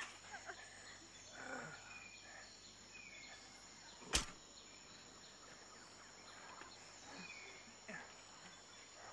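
Faint outdoor ambience of insects droning steadily, with a few short bird-like chirps. A single sharp click comes about four seconds in.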